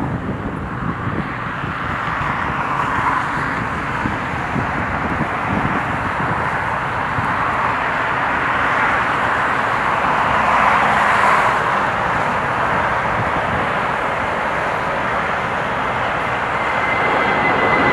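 Jet airliner passing, its engine roar swelling to a peak about halfway through and easing off again, with a thin high engine whine coming in near the end.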